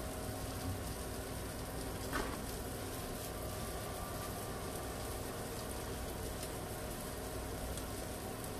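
Breaded tilapia fillets frying in hot oil in a pan: a steady sizzling hiss with fine crackling. A single brief knock about two seconds in.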